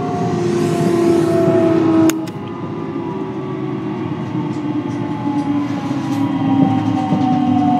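Onboard running sound of a JR West 223 series train with Hitachi IGBT-VVVF inverter control: the traction motors' whine falls slowly in pitch over wheel and rail noise as the train slows on its approach to a station. A sharp click about two seconds in is followed by a drop in level, and then a fresh set of falling tones.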